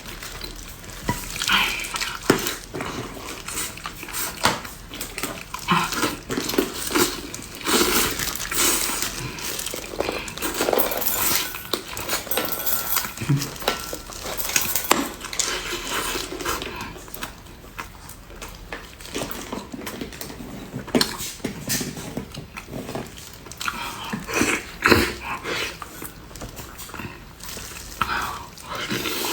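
Close-up eating sounds: irregular chewing and mouth noises, with occasional clinks of utensils against a dish.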